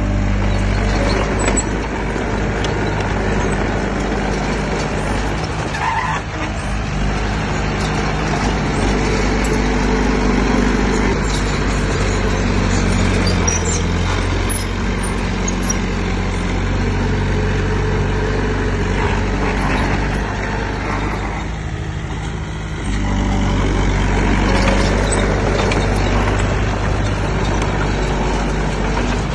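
Heavy diesel earthmoving machinery running close by, its engine note steady with shifts in pitch and load. It eases off briefly about three-quarters of the way through, then picks up again.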